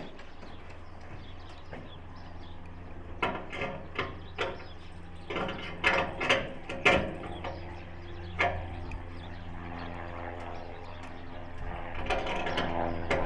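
A steady low mechanical hum with irregular clicks and clanks, clustered about three to seven seconds in, and one more a little later.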